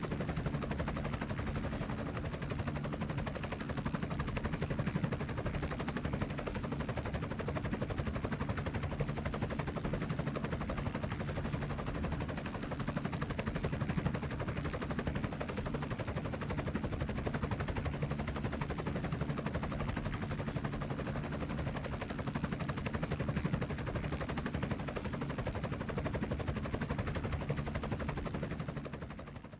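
Steady mechanical running sound with a low hum and rapid pulsing that holds constant, then fades out at the very end.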